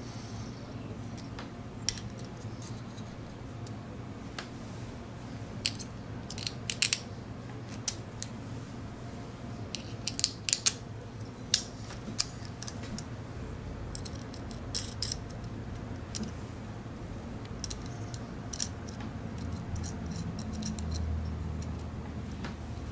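Small metal clicks and clinks as aluminium robot-kit beams, a bracket, screws and nuts are handled and fitted together by hand, coming in scattered clusters over a low steady hum.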